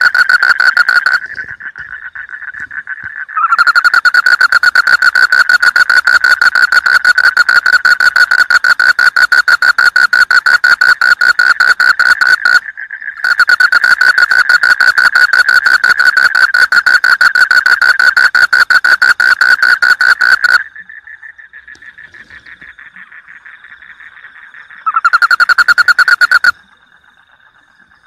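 Frogs calling: a loud, fast pulsing croak in long runs of several seconds, broken by short gaps in which quieter frogs keep calling. The loud calling stops about a second in and resumes after a couple of seconds. It breaks briefly past the middle, falls away about three-quarters through, and returns for one short burst near the end before only faint calling is left.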